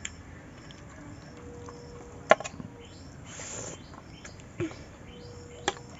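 Stainless-steel plates and utensils clinking during a meal: one sharp metallic clink about two seconds in, a brief scrape a second later, and a couple of lighter taps near the end.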